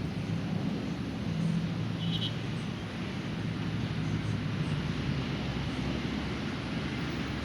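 Steady rumble of road traffic, with vehicle engines running, and a brief high chirp about two seconds in.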